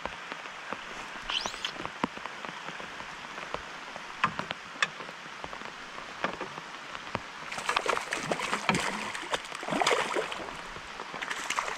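Steady rain falling on the river surface, a hiss with many small drop ticks. From about eight seconds in, a hooked trout thrashes and splashes at the surface beside the boat as it comes to the net, in louder irregular surges.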